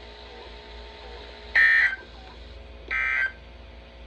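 NOAA Weather Radio SAME end-of-message data tones: two short bursts of digital warbling tone, about a second and a half apart, signalling the end of the warning message.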